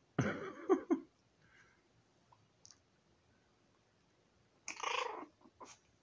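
Three-week-old puppies play-fighting, with two short bursts of puppy vocalizing: one at the start and one about five seconds in.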